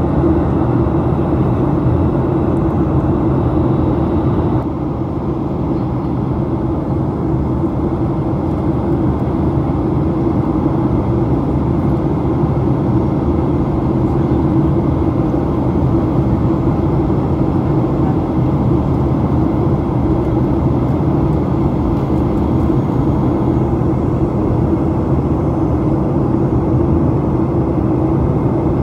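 Steady drone of jet engines and airflow heard inside the cabin of a Boeing 737-800 airliner, with a constant low hum. The higher hiss eases slightly about five seconds in.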